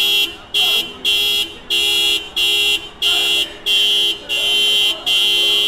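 Car horn honked over and over in short blasts, about nine in under six seconds, with one longer blast near the end.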